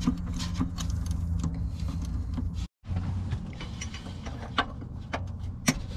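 A hand wrench working the steel bolts of an engine oil pan, making scattered metallic clicks and clinks, with a few sharper clicks near the end. A steady low hum runs underneath, and the sound drops out briefly a little under three seconds in.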